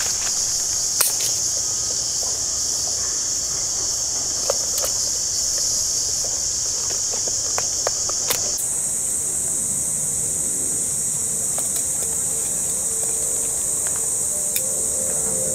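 A steady, high-pitched insect chorus, its pitch jumping higher abruptly about eight and a half seconds in, with a few sharp clicks from pruning shears snipping durian stems.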